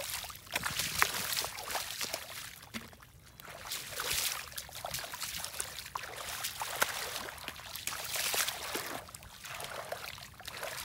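Hands scooping and groping through shallow muddy water and wet mud, with irregular splashing and sloshing that comes in uneven surges.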